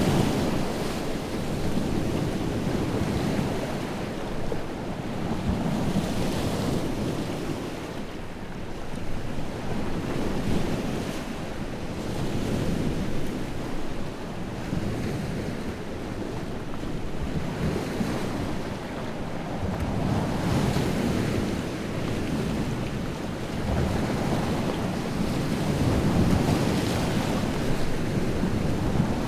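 Wind-driven lake waves breaking on the shore, a continuous wash of surf that swells and ebbs every few seconds, with wind buffeting the microphone.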